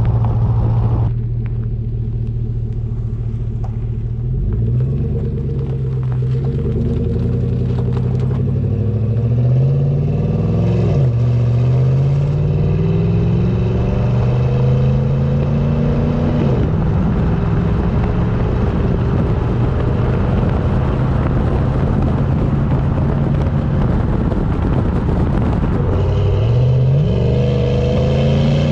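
Chevy Silverado 5.3-litre V8 through an MBRP cat-back exhaust, pulling under acceleration. The engine holds a steady note, climbs in pitch and drops back at two upshifts, cruises steadily, then starts climbing again near the end.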